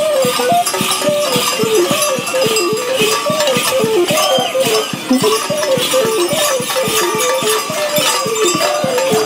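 A quick folk dance tune with a single melody line stepping up and down, over a steady beat of about three to four strokes a second and the jangling of bells worn on the dancers' sheepskin costumes.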